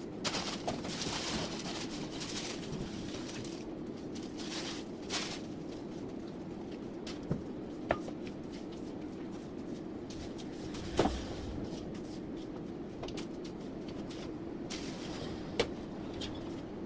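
A steady hum in the room with a few light knocks and clicks as things are handled during tidying. The loudest knock comes about eleven seconds in.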